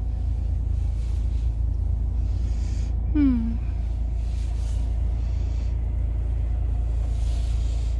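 Steady low rumble of a 2019 Cadillac XT5's 3.6-litre V6 idling, heard from inside the cabin. A brief vocal sound falls in pitch about three seconds in.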